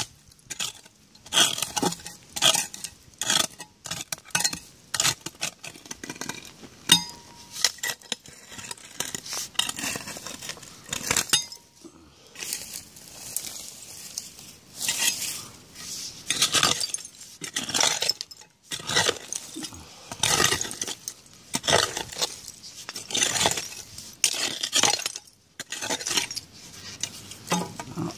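A hand digging tool scraping and striking into root-filled soil in repeated quick strokes, some of them clinking against buried bottle glass.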